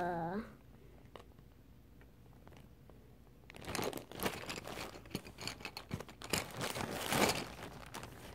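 Colored pencil scratching rapidly back and forth on a coloring-book page, starting about three and a half seconds in.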